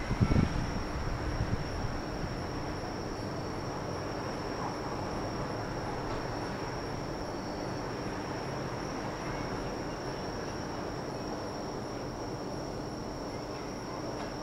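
Insects chirring steadily in one high, even tone over a faint steady hum, with a low rumble in the first two seconds.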